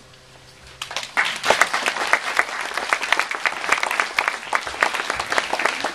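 Audience applauding, breaking out suddenly about a second in after a near-quiet pause, with many dense, overlapping claps.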